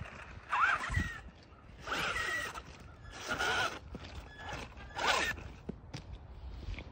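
Toy RC buggy driven in short throttle bursts on wet asphalt: its small electric motor whines, dipping and rising in pitch with each burst, along with a hiss from the tyres. There are four bursts about a second apart.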